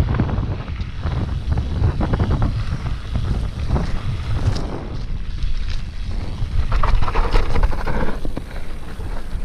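Wind buffeting an action-camera microphone while a Diamondback hardtail mountain bike rides rough singletrack, with a steady low rumble and many short rattles and clicks from the bike over the ground.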